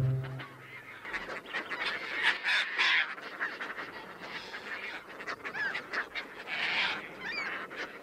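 A Caspian tern nesting colony calling: many calls overlap, with the loudest burst about two to three seconds in.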